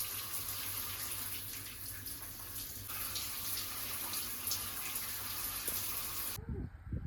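Water running steadily from a tap or shower, cutting off suddenly about six seconds in, followed by a couple of low thumps.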